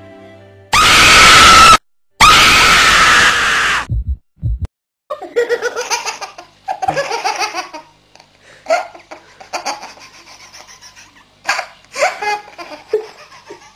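Soft music cut off about a second in by a sudden, very loud scream, a jump-scare, which breaks briefly and comes back just as loud for almost two seconds. Two short low thuds follow, then bursts of hearty laughter.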